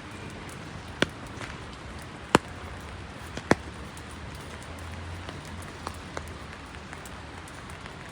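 Steady hiss of falling rain, broken by a few sharp single taps, most likely large drops striking something close by. Three loud taps come in the first half and two fainter ones come later.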